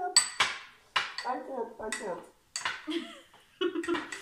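A metal spoon clinking against a drinking glass as a mixed drink is stirred: several separate, irregular clinks.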